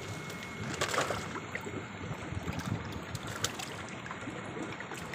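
Water splashing and sloshing in a shallow basin as hands move through it and lift koi. The louder splashes come about a second in and again around three and a half seconds.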